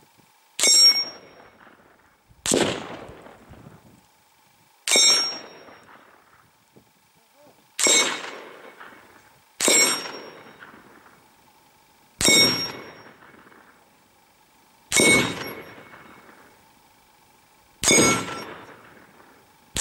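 Rifle bullets striking steel gong targets: about nine sharp clangs, one every two to three seconds, each ringing with a metallic tone and fading over a second or two.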